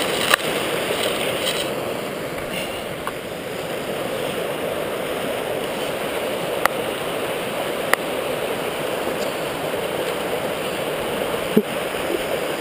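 A fast mountain stream swollen with rainwater, rushing steadily over rocks. A few sharp clicks or knocks cut through it, the loudest just after the start and about a second before the end.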